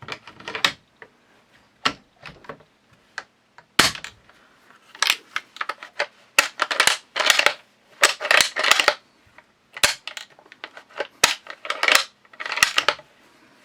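Steel parts of a Mle.1892 Berthier carbine being fitted and handled during reassembly: a run of sharp metallic clicks and clacks with short rattling clusters and brief quiet gaps between them.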